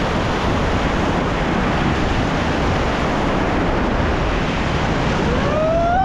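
Whitewater rapids rushing loudly and steadily around an inflatable raft, with wind on the microphone. Near the end a person's voice rises into a long held shout.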